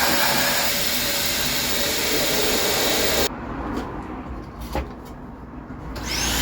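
Vacuum cleaner (hoover) set to blow, its air rushing through a car exhaust back box to check for flow restriction. It cuts off suddenly about halfway through and starts up again near the end with a rising whine.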